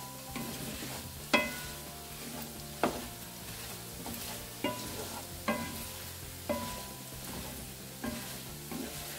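Diced potatoes sizzling in hot oil in a frying pan while a wooden spatula stirs them. The spatula knocks against the pan about seven times, each knock a short clack with a brief ring.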